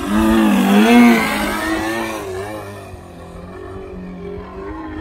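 Single-cylinder two-stroke petrol engine of a radio-controlled Extra 330 aerobatic plane running in flight, its pitch rising and falling with the throttle. It is loudest about a second in, then grows fainter.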